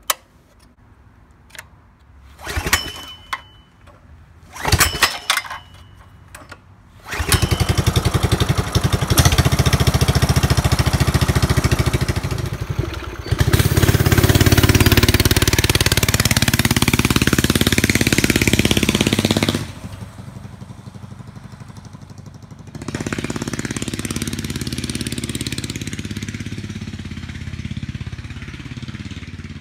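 Single-cylinder four-stroke Predator small engine on a mini pit bike being started: two brief attempts about three and five seconds in, then it catches about seven seconds in and keeps running. It revs up louder with a rising pitch, drops off near twenty seconds, then comes back at a steadier, lower level.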